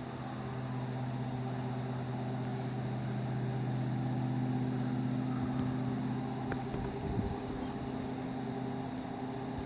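Steady low droning hum of several held tones, swelling a little through the middle: the unexplained 'sky hum', its cause unknown. A brief click and a low thump come about two-thirds of the way in.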